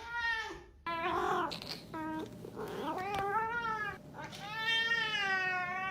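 A cat meowing over and over in long, drawn-out, yowling calls, one after another, the last one held for about a second and a half.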